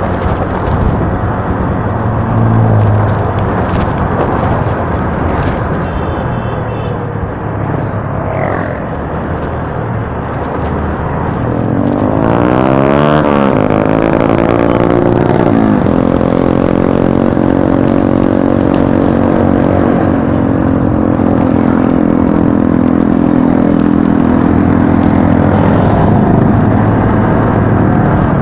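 Motorcycle engine running while riding, with road noise; about halfway through the engine pitch swings up and down, then holds steady.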